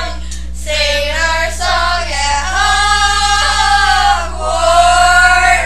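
A group of young voices, girls' voices strongest, singing together and holding long drawn-out notes, two long held notes in the second half.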